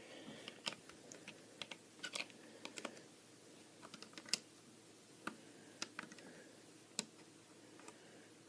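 Irregular light clicks and taps of small plastic Lego pieces being handled and fitted together, as a minifigure is posed holding a brick-built rifle.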